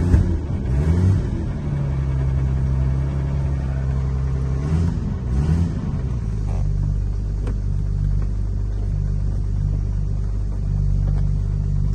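1963 Jaguar Mk II 2.4's 2.4-litre XK straight-six engine idling, heard from the driver's seat. Its revs rise and fall twice, near the start and about five seconds in, then it settles to a steady, lower idle.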